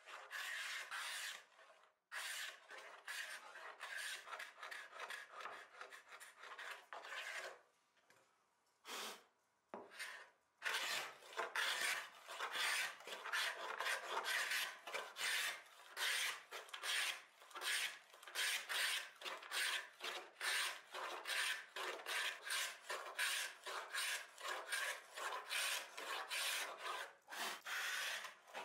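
Hand scraper drawn over a wooden desk top in repeated strokes, peeling off an old, thin lacquer finish. After a short break about eight seconds in, the strokes come in a steady, quicker run.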